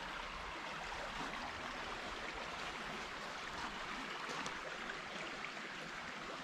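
Small stream running over rocks: a steady rushing of flowing water.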